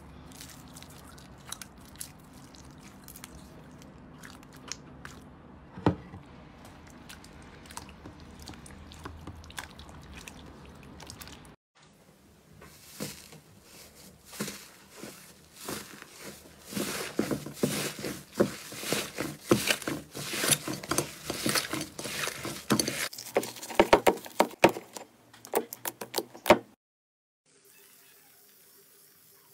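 Slime being squished by hand. First comes a soft, dense crackling from foam-bead slime pressed into clear slime. Then a thick green slime is pressed by the fingers, with sticky clicks and pops that grow into a loud, fast crackling over the middle of the stretch and stop abruptly about three seconds before the end.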